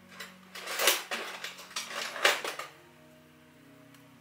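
Small metal tools clinking and scraping in several short bursts as tweezers are handled over a circuit board. It stops about two and a half seconds in.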